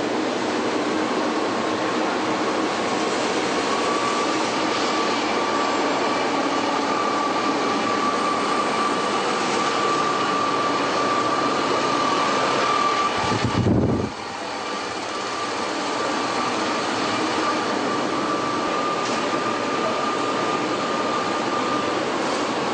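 Steady machinery noise of a truck factory hall, with a thin steady whine running through it. About 13 seconds in, a brief low rumble swells, then the sound drops suddenly and builds back to the same steady din.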